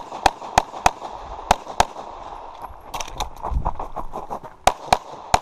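Pistol shots fired in quick strings during a practical-shooting stage: four rapid shots about a quarter second apart, then a pair, fainter pops a little past the middle, and three more sharp shots near the end.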